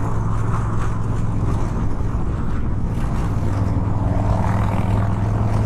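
2015 Harley-Davidson Street Bob's V-twin engine running steadily at highway cruising speed, with wind and road rush over the hum. The hum grows a little stronger about two-thirds of the way through.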